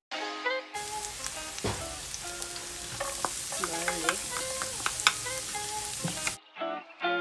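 Diced onions and minced garlic sizzling in hot oil in a frying pan. The sizzle starts abruptly about a second in and cuts off suddenly near the end, with background music under it.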